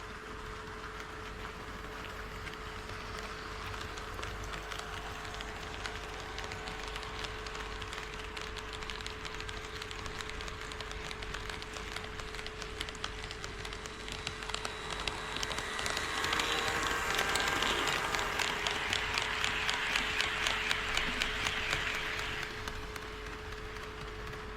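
HO-scale model train running on sectional track, its wheels clicking rapidly over the rail joints under a steady motor hum; the rattle grows louder for several seconds past the middle as the train passes close, then fades back.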